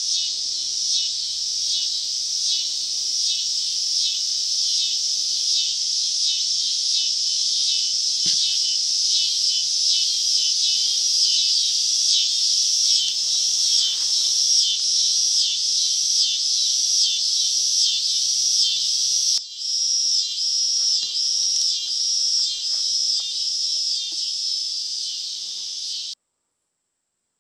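Chorus of insects chirring in a high, evenly pulsing rhythm, about two pulses a second. It cuts off suddenly near the end.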